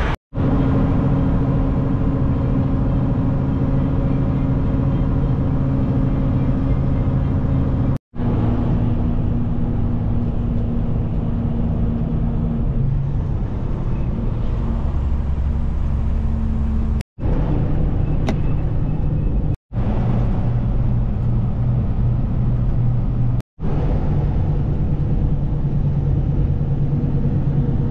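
Kenworth semi-truck's diesel engine and road noise heard from inside the cab while driving on the highway: a steady, loud drone whose pitch changes from one stretch to the next, cut off abruptly for an instant four times.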